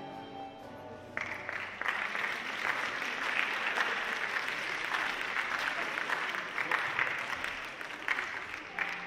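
Tango music fades out, then an audience applauds from about a second in, dying down near the end.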